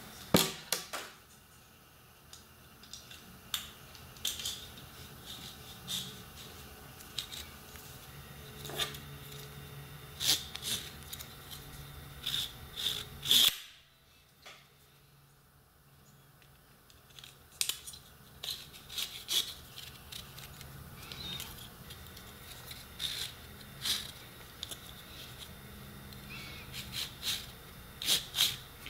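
Irregular clicks and taps of hard plastic Beyblade parts being handled, with a quiet gap of a few seconds about halfway. Near the end the clicks come from the toothed ripcord being fed into the launcher.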